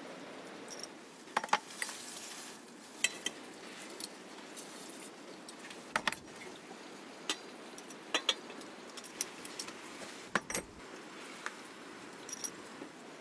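Kitchen utensils and dishes clinking and knocking in short scattered strikes, some with a brief ringing tail, over a faint steady background hiss.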